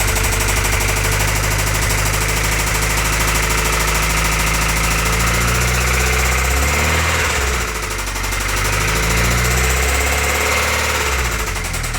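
Toyota 22RE 2.4-litre four-cylinder engine running with a rapid, rhythmic knock, a knock that appeared after the valve cover was refitted. Past the middle the engine speed shifts up and down before settling.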